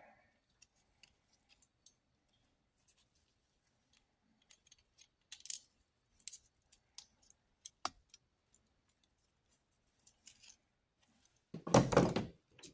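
Faint, scattered metallic ticks and clinks of a small steel T-handle tap wrench being handled, then a louder clatter near the end as it is set back down in its plastic case.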